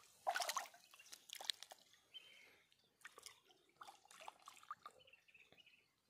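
Water splashing and dripping in short, irregular bursts as a cormorant moves about in the water. The loudest splashes come in the first second and a half.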